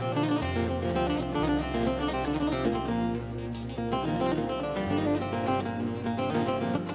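Bağlama (Turkish long-necked saz) strummed and picked in a fast run of notes, playing the instrumental opening of a Turkish folk tune (türkü). A low held bass sounds underneath and shifts to a new note a few times.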